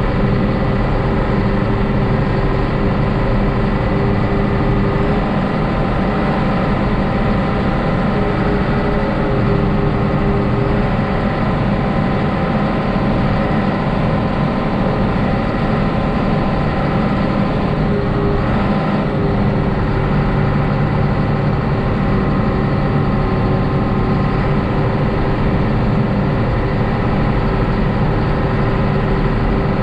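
A large vehicle engine running steadily, a constant drone with an even pitch throughout.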